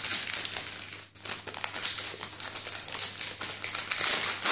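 Paper wrapper of a sterile glove pack crinkling and rustling as it is handled, peeled and unfolded, in a rapid, uneven run of crackles.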